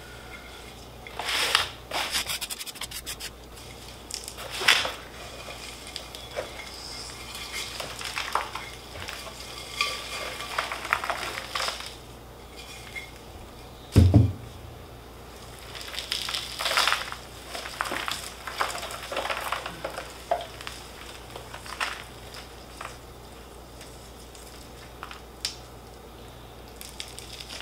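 Dry, chunky potting mix of bark and perlite crackling and rustling as a hoya's root ball is worked out of a terracotta pot and pulled apart by hand, with gritty scrapes against the clay. A single thump about halfway through.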